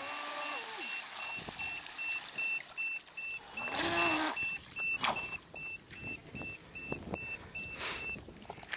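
Rapid electronic alarm beeping, about three short beeps a second, stopping shortly before the end. About four seconds in, a Traxxas Spartan RC speedboat briefly rushes past close by, its motor and spray loudest there.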